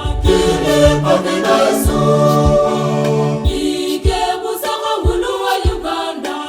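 Church choir singing a hymn in several-part harmony over a steady low beat, about two beats a second.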